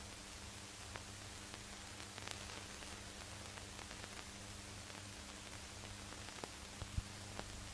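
Steady hiss and low mains hum from an old archival film soundtrack, with scattered clicks and crackle and no speech.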